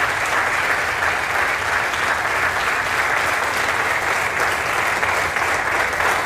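Audience applauding in a steady, unbroken ovation.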